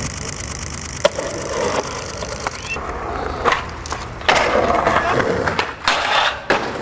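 Skateboard tricks on concrete: urethane wheels rolling, a sharp clack of the board popping or landing about a second in, then further clacks and a loud, rasping grind of the board sliding along a rail or ledge in the second half.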